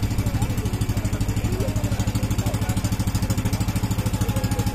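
Engine of a motorized outrigger boat running steadily under way, a fast, even chugging.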